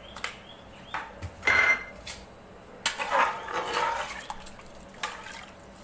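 Metal kitchenware clinking and the watery porridge sloshing in an aluminium pressure cooker as it is stirred. A loud ringing metal clink comes about a second and a half in, and a longer run of sloshing and scraping starts just before three seconds.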